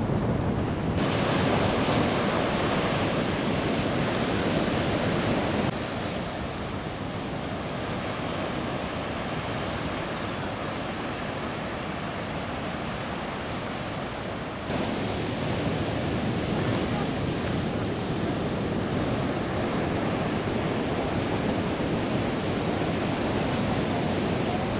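Sea surf breaking and washing in, with wind buffeting the microphone: a steady, even rushing noise that jumps abruptly in level about a second in, near six seconds and near fifteen seconds.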